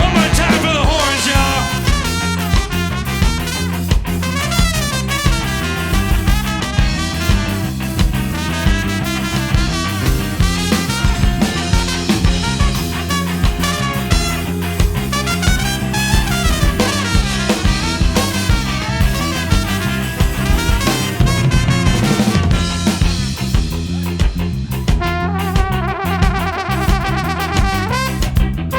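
Live band of alto sax, trumpet and trombone over guitar, bass and drum kit, playing an upbeat ska-swing instrumental passage. A horn holds a long note near the end.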